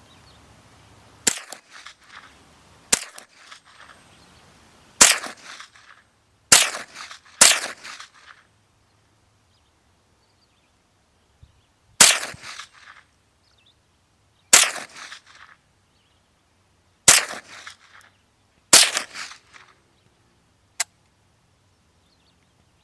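Ruger 10/22 semi-automatic .22 LR rifle firing about nine single shots at an uneven pace, one to two and a half seconds apart with a pause of a few seconds in the middle, each shot trailing off in a short echo. A single sharp click sounds near the end.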